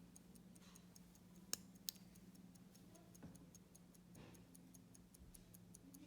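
Mechanical pocket watch movement ticking faintly and steadily at a quick lever-escapement beat, about five ticks a second. Two sharper, louder clicks come about a second and a half in.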